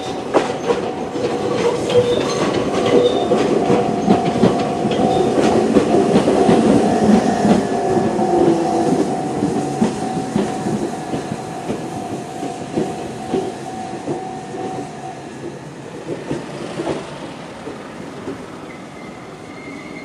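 Level-crossing alarm with a JR Central-type electronic bell tone ringing steadily while a Jōshin Electric Railway 500 series electric train passes, its wheels clicking over the rail joints. The train noise is loudest in the middle and then fades. The bell stops about three-quarters of the way through as the train clears the crossing.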